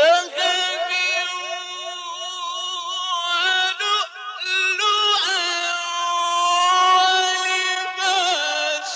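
A man chanting Quran recitation in the melodic mujawwad style, holding long drawn-out notes with rapid wavering ornaments. He pauses briefly about three and a half seconds in and again near the end.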